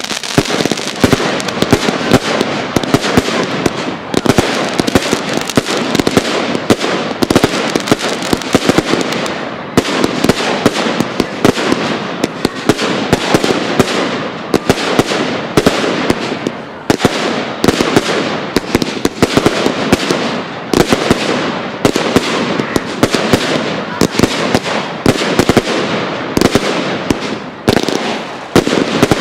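Professional fireworks display: a dense, unbroken run of sharp bangs and crackle, many reports a second with hardly a gap.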